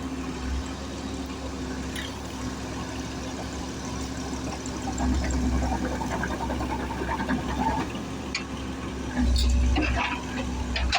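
Diesel engine of a Komatsu PC130 excavator running steadily at idle, a low hum with a deep rumble that swells twice, under a rushing hiss and a few light clicks.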